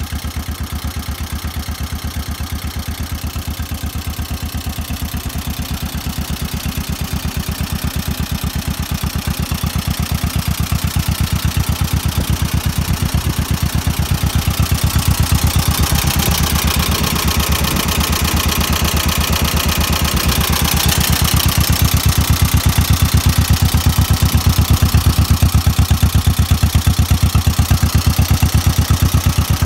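1952 John Deere 40-S tractor's two-cylinder engine idling steadily, with an even beat of firing pulses. It grows somewhat louder in the second half.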